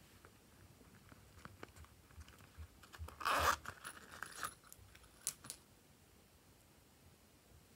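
Zipper of a small pop-it coin purse being pulled open about three seconds in, one short rasp, followed by a few light clicks as a small bottle is handled.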